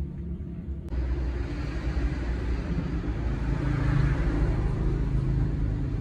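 Steady low engine rumble of passing road traffic, swelling about four seconds in.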